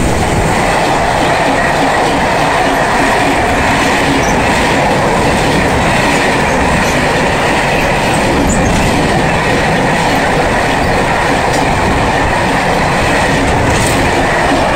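Freight train of covered wagons running past at close range through a station without stopping: a steady, loud rumble and clatter of wheels on the rails as the wagons roll by.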